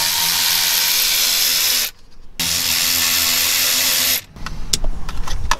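Cordless electric ratchet running in two steady bursts of about two seconds each with a short pause between, driving a fastener through a long extension into a plastic bracket.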